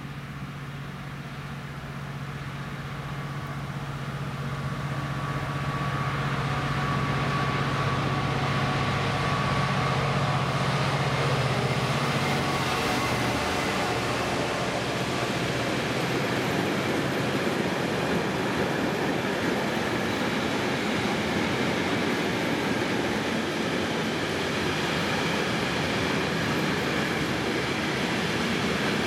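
Class 66 diesel-electric locomotive's EMD two-stroke V12 working under load up a gradient, its low engine drone growing louder as it approaches and fading about halfway through. A long train of covered freight wagons then rolls past with a steady rumble and wheel-on-rail clatter.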